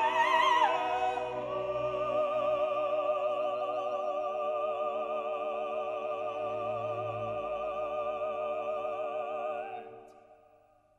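Classical music: operatic voices with orchestra sing a long held chord with vibrato, which fades away about ten seconds in.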